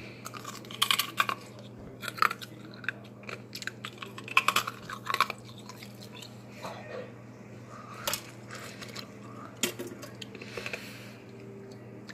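Ice being bitten and crunched in the mouth close to the microphone: irregular clusters of sharp cracks and crunches with wetter chewing between them.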